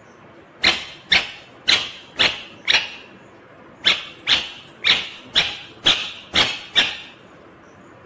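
Indian ringneck parakeet calling in short, sharp squawks, about two a second: five in a row, a brief pause, then seven more.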